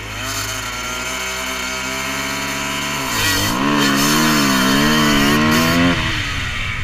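Enduro dirt-bike engine under throttle: the revs climb at the start and hold, dip about three seconds in, then rise and fall repeatedly for about three seconds as the rider works the throttle, easing off near the end.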